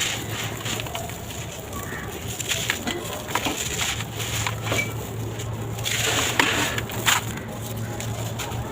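Dry sand-cement blocks crumbling in a tub: a run of gritty crunches and small cracks, loudest in a cluster about six to seven seconds in.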